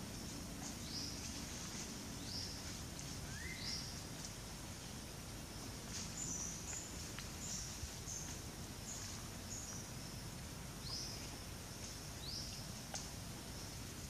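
A bird repeating a short, high, rising call every second or two over steady background noise, with a couple of faint clicks.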